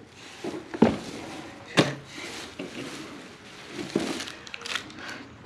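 Shoes and other items being handled and set down while sorting: two sharp knocks about one and two seconds in, then softer taps and rustling.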